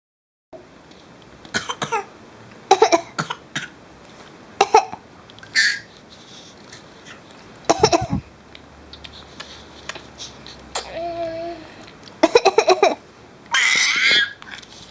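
A woman coughing and a young child imitating her with short coughs of its own, a string of brief sharp coughs every second or two. A short child's vocal sound and a high squeal come near the end.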